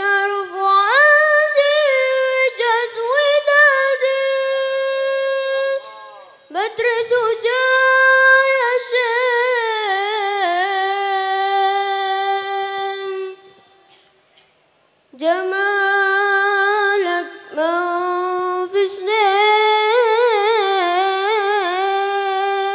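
A boy singing a sholawat (Islamic devotional song) unaccompanied into a microphone, in a high voice with long held, ornamented notes. He sings it in three phrases, with short breaks about six seconds in and about fourteen seconds in.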